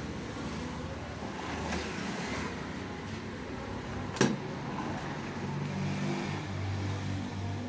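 Steady motor-like running noise with one sharp knock about four seconds in; a low hum grows stronger near the end.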